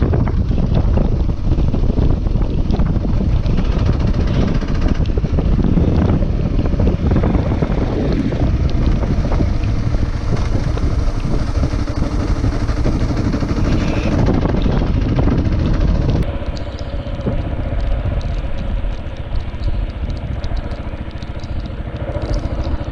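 Kawasaki KLR 650's single-cylinder engine running as the motorcycle rides along a dirt track, with wind buffeting the camera microphone. The sound drops a little about two-thirds of the way through.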